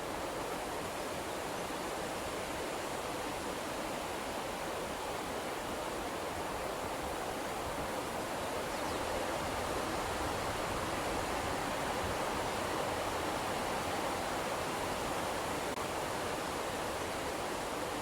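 Wind-blowing sound effect: a steady rushing of wind that swells a little about halfway through.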